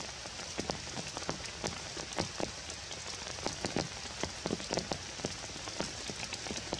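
Rain falling in forest: a steady hiss with many irregular, sharp taps of single drops striking close by.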